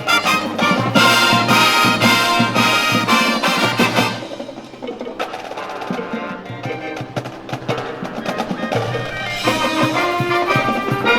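High-school marching band playing, brass and percussion together. About four seconds in it drops to a quieter passage, and the full band comes back in loudly near the end.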